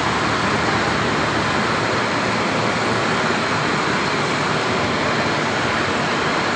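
DTH drilling rig at work, a loud steady rushing machine noise with no change in level.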